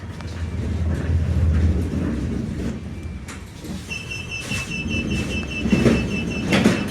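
Passenger lift car running with a low rumble, then from about four seconds in a rapid electronic beeping, about four short beeps a second, that keeps going.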